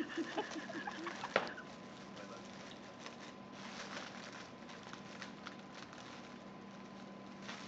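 Foil (Mylar) helium balloon crinkling in the hands while helium is breathed out of its neck, with a faint hiss and crackle. A sharp click comes about a second and a half in.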